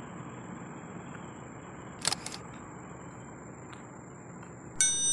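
Two quick clicks like a camera shutter about two seconds in, then near the end a bright, ringing chime that fades slowly, over a steady outdoor hiss.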